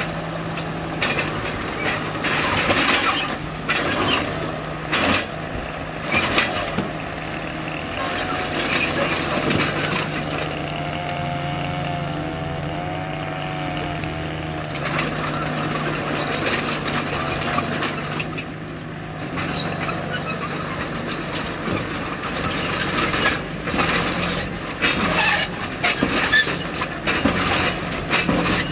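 Bulldozer working: its diesel engine runs steadily under irregular clanks and knocks of tracks and rock, with a wavering whine around the middle.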